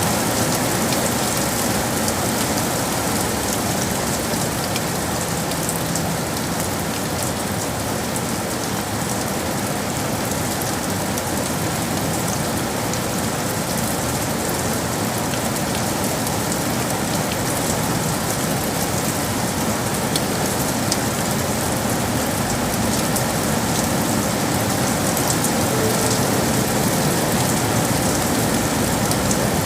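Steady rain falling on city surfaces, an even patter of drops.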